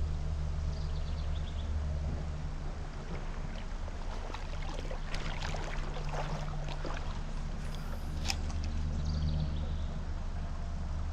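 Small stream running steadily with a low rushing rumble, with a run of sharp clicks and rattles from about four to eight seconds in.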